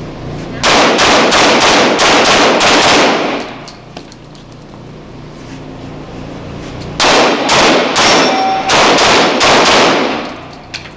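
Open-division competition pistol fired in two rapid strings of shots, about four a second, with a pause of a few seconds between them while the shooter moves. The shots echo off the walls of an indoor range.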